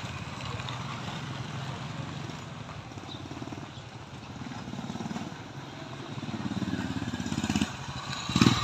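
Small motorcycles riding past one after another at low speed, their engines running with an even pulsing note. One passes close at the start, and another grows louder as it approaches and passes close near the end.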